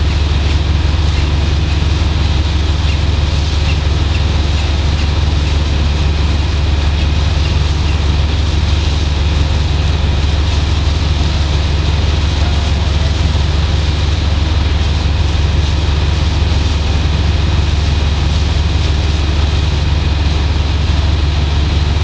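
Steady, loud low rumble of a ship's engines and machinery, unchanging throughout, with faint steady whining tones on top.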